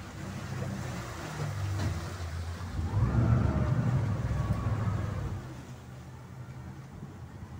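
Speedboat engine running with a low rumble. About three seconds in it swells louder with a rising pitch, as if throttled up, then eases back about two and a half seconds later.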